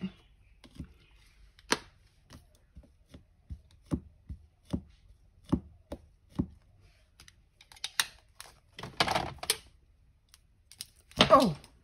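Scattered sharp clicks and taps of small craft items being handled and set down on a work table, with a short rustling scrape about nine seconds in.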